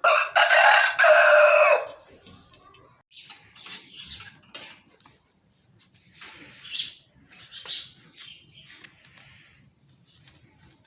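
A rooster crows once, loud, for about two seconds right at the start, followed by scattered fainter short bird calls.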